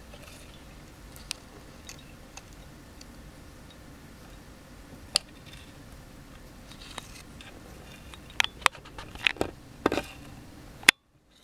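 Quiet room tone with scattered small clicks and taps: a few spread through the first half, then a quick cluster of them in the last three seconds, followed by a brief cut to total silence.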